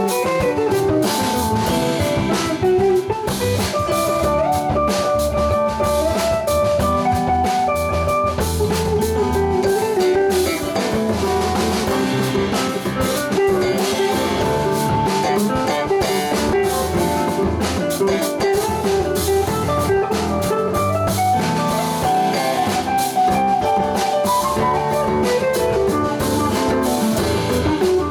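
Live band of electric guitar, organ, bass and drum kit playing, with the guitar carrying a melodic line over the drums and bass.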